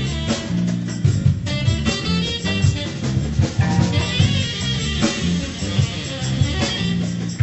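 Instrumental background music with a bass line and a steady drum beat.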